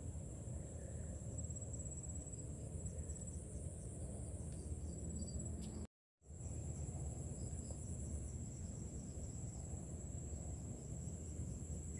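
Insects trilling steadily in a high, even, pulsing band over a low steady rumble; the sound cuts out for a moment about six seconds in.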